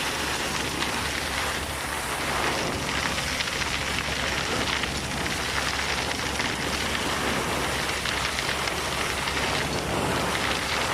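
Vacuum excavator running: a steady rushing hiss over a constant low engine hum.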